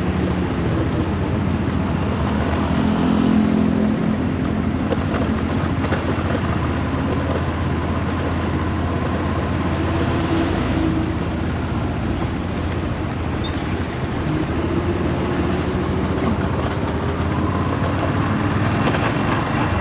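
Yamaha SRX400's single-cylinder engine running as the bike is ridden, its pitch drifting up and down. The owner suspects a blown transmission and a slipping clutch.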